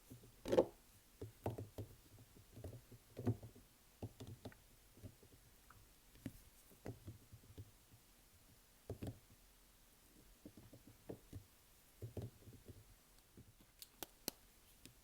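Soft, irregular knocks and taps from soap bars and their packaging being handled and set down, with a few sharp clicks near the end.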